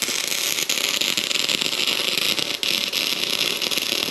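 Arc welder running a continuous weld, a steady crackling hiss, as a washer is welded onto the end of a seized brake caliper pin.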